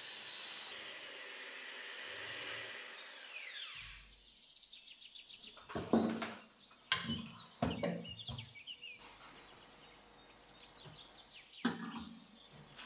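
A small electric kitchen appliance's motor running with a steady whir, then switched off about four seconds in, its whine falling away as it spins down. Then a run of quick ticks and several sharp knocks and clatters, the loudest about six and seven seconds in and again near the end.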